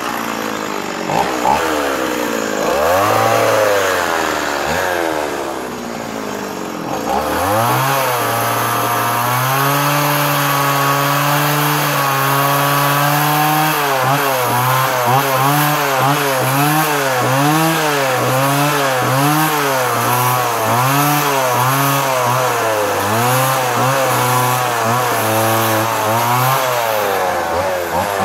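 Stihl MS170 two-stroke chainsaw running while carving into a wooden post, its engine pitch rising and falling as the throttle is worked. About eight seconds in it climbs and holds at high revs for several seconds, then surges up and down about once a second.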